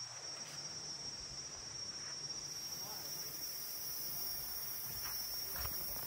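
Insects, crickets or similar, trilling steadily in one unbroken high-pitched buzz, with a higher, fainter hiss coming in about halfway through and a few faint crackles near the end.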